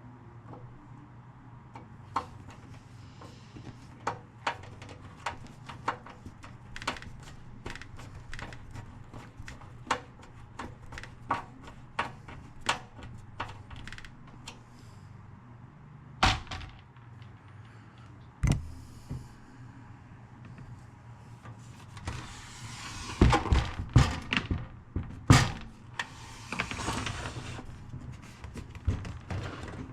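Many small clicks and taps, then two louder knocks and, near the end, a stretch of rubbing and several heavy thunks: the speaker being handled as it is put back together. A steady low hum runs underneath.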